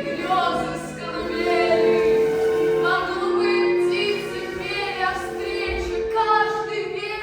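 Music with voices singing long held notes, choral or operatic in style.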